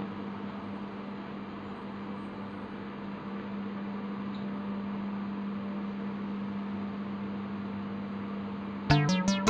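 Steady electrical hum with a strong low drone, like an appliance running. Near the end, music with short plucked notes starts.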